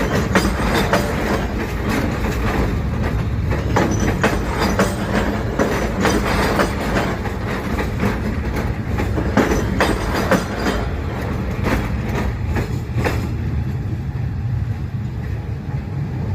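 Train running on the track: a steady low rumble with irregular clacks and knocks from the wheels over the rail joints. The knocks thin out after about 13 seconds in.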